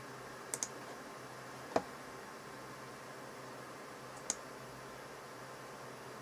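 A few short, sharp clicks: a quick double click about half a second in, a louder single click a little later, and a fainter one past the middle. Under them runs a steady low hum, like a running computer's fans.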